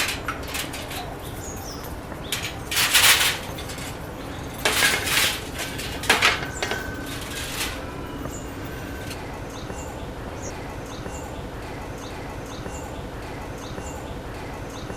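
Birds in a park: a few short loud flurries of noise in the first seven seconds, the loudest about three seconds in, then small high chirps.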